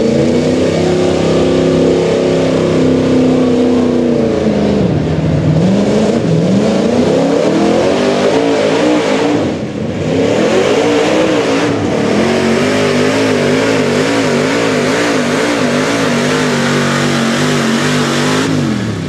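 Square-body Chevy pickup's engine running at full throttle while pulling a weight sled on a dirt track. The revs hold high, dip about five seconds in, climb again and waver, then fall away near the end.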